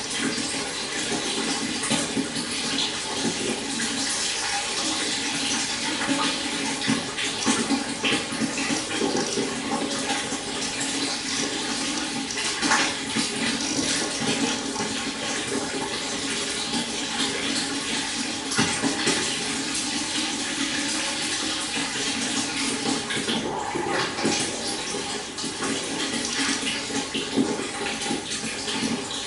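Stream water flowing and splashing continuously, an even rushing babble with small irregular splashes.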